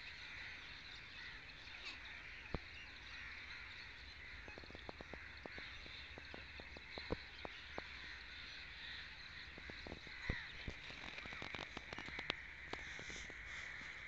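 Faint calling of a flock of waterfowl and other birds, a steady chorus with scattered light clicks through the second half.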